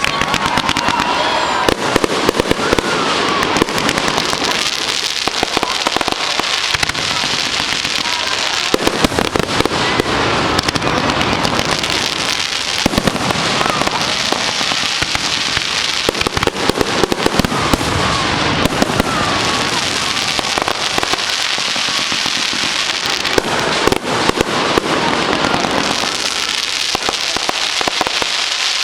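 Fireworks display: a rapid, unbroken run of bangs and crackling cracks, dense throughout.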